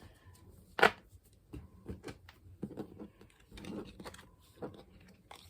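Basketball trading cards being handled and laid out: one sharp click about a second in, then scattered light clicks and rustles.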